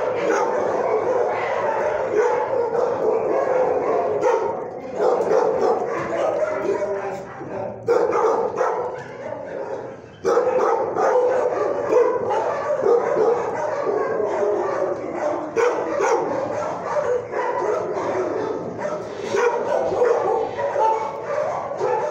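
Many dogs barking and yipping at once in an animal shelter's kennel block: a continuous, overlapping din that dips briefly near the middle, then comes straight back.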